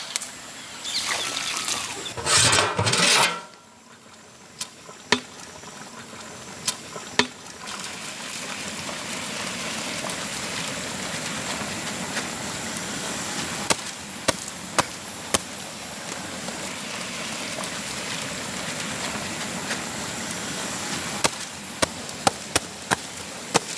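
Big pot of biryani cooking over a fire: a steady hiss with scattered sharp clicks. The first three seconds or so hold louder splashing, like water or rice going into the pot.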